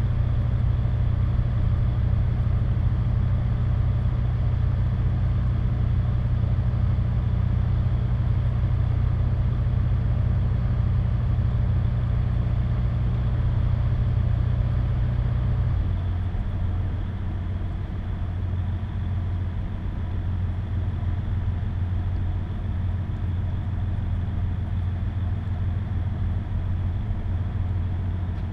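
Car engine idling steadily in stopped traffic, a low hum. About halfway through, its low tone shifts and drops a little in level.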